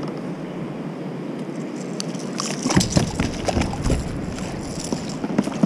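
Steady rush of fast river current and whitewater around a kayak. A cluster of sharp knocks and clicks comes about halfway through, with one more sharp knock near the end.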